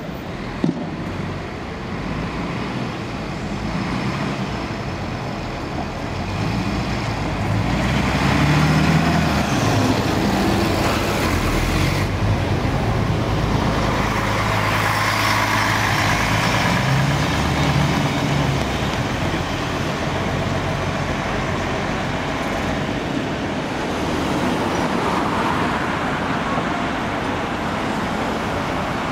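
Articulated city buses running at a stop, their engine hum growing louder about eight seconds in as one pulls past close by, over general traffic noise. There is one sharp click just after the start.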